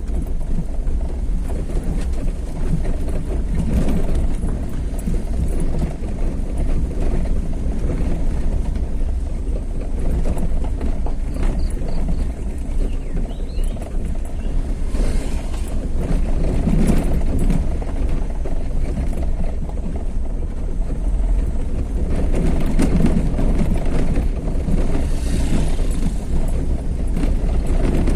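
A vehicle driving along a road: a steady low rumble of engine and road noise.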